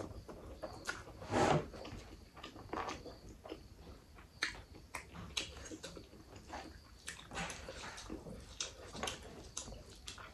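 Close-up mouth sounds of eating by hand: chewing and wet smacks of a mouthful of rice and mutton gravy, loudest about a second and a half in. Soft squelches come from fingers mixing rice and gravy on the tray.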